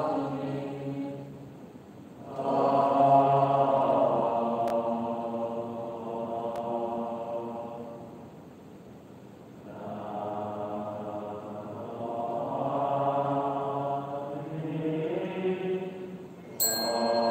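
Buddhist devotional chanting: slow, drawn-out sung notes in long phrases, breaking off about two seconds in and again around eight to ten seconds in. Near the end a high ringing tone starts suddenly.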